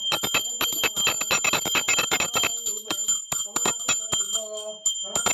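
Brass puja hand bell rung rapidly, a quick run of clapper strikes over a steady bright ringing. The strikes are densest for the first couple of seconds and then come more sparsely.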